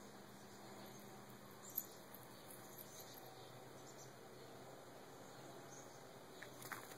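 Near silence, with a few faint, brief high squeaks from a young chipmunk and one short click a little under two seconds in.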